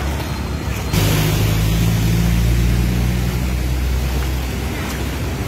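A motor vehicle engine running close by, a low steady hum that starts suddenly about a second in and fades after about three seconds, over a steady hiss of wind and water.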